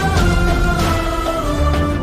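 Background music from a Hindi film-style song: held melody notes over a heavy bass.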